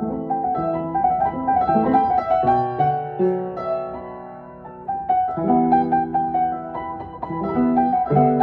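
Instrumental music: a break in a song with held chords and a melody line changing every second or so, and no singing.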